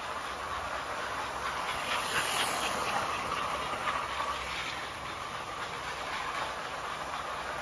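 American Flyer 343 0-8-0 die-cast switcher pulling boxcars around an S-gauge test loop: the steady rolling rattle of its motor and wheels on the rails, with faint clicks. It grows louder as the train passes close, around two to four seconds in.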